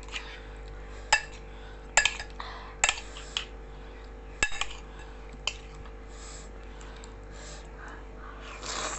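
Eating utensils clinking and scraping against a bowl of noodles: a handful of sharp, irregular clinks, mostly in the first half.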